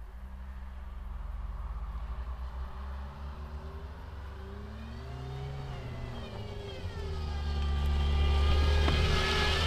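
Car driving, its engine note swelling and dipping midway, then climbing and growing louder as it accelerates.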